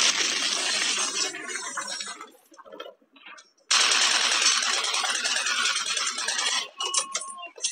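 Battle sound effects: a sudden explosion with a long crackle of falling debris, then about four seconds in a second blast with debris, as a tank fires in the street. Sharp clicks and rattles follow near the end.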